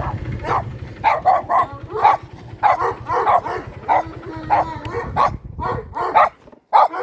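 A dog barking over and over in short, loud yelps, about two a second. A low rumble fades out in the first second.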